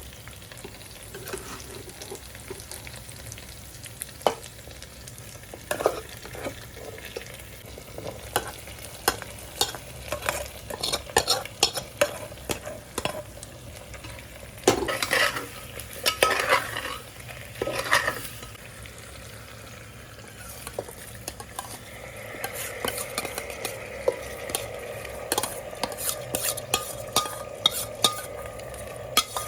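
Food frying in a pot while a spoon scrapes and knocks against the pot as it is stirred. The clicks and scrapes come in clusters, thickest in the middle, and a steadier sizzle comes up over the last several seconds.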